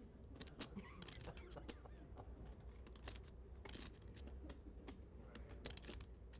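Poker chips clicking together in several quick, irregular clusters of sharp clicks, over a low steady hum.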